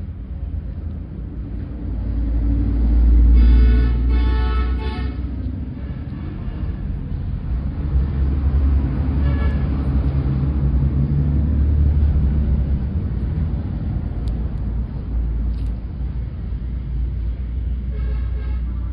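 A loud low rumble, swelling about three seconds in, with a brief pitched tone about four seconds in and again near the end.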